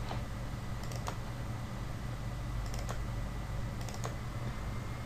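Computer mouse clicking: a single click, then three quick double-clicks about a second apart, over a steady low hum.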